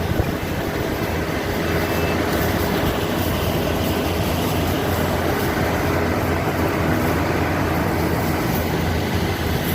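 Rice harvesting machine running steadily, its engine giving a low even drone under a loud hiss of threshing and moving machinery.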